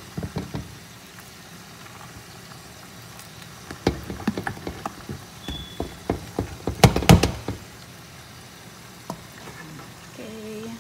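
Spoon stirring a thick sauce in a metal pot: irregular knocks and scrapes of the spoon against the pot, coming in clusters, loudest about seven seconds in.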